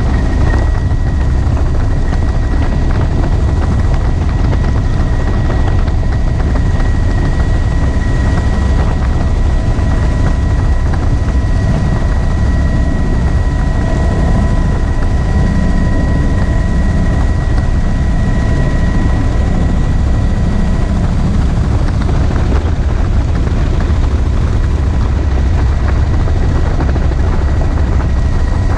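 Helicopter in flight with its doors off, heard from the open cabin: steady loud rotor and engine noise, with a thin high whine that fades out about two-thirds of the way through.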